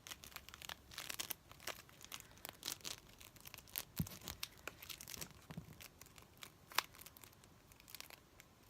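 Plastic packaging crinkling and tearing close to the microphone, a quick, irregular run of crackles and ticks with a sharper snap about four seconds in and another near seven seconds.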